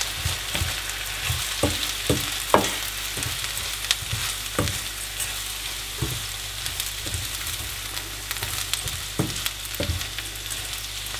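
Bulgur with peppers, tomato paste and tomatoes sizzling in butter and oil in a nonstick pan while it is stirred with a spoon. A steady sizzle runs under irregular knocks and scrapes of the spoon against the pan.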